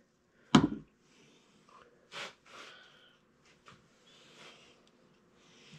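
A single sharp knock about half a second in, then quiet hand handling of small engine parts: a few faint clicks and soft breaths or sniffs.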